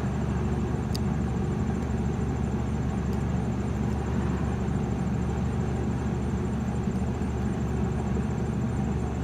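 Steady low hum of an idling car engine.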